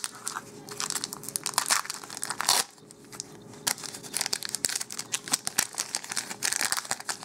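Foil Magic: The Gathering booster pack wrapper being torn open and crinkled in the hands: a run of sharp crackles, loudest about two and a half seconds in, easing off, then picking up again.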